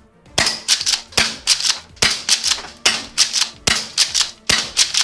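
Gas-powered airsoft pump-action shotgun being slam-fired rapidly: about six sharp shots, one every 0.8 s or so, with the clack of the pump being worked between shots.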